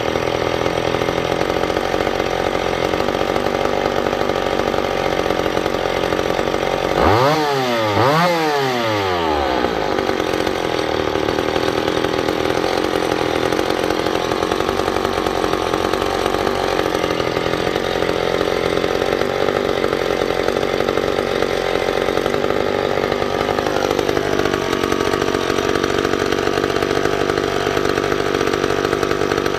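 McCulloch two-stroke chainsaw engine running steadily, blipped up to high revs twice in quick succession about a quarter of the way in, then settling back; its pitch drops slightly near the end.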